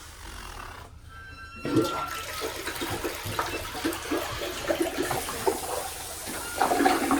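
Water rushing, starting suddenly about a second and a half in, with small clattering sounds through it.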